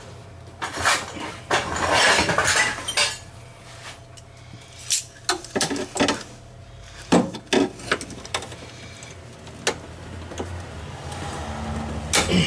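Metal clinks, knocks and scraping as a steel repair plate and tools are handled and shifted into place by hand, with a rough scraping stretch about a second in and several sharp single clanks later. A low steady hum runs underneath.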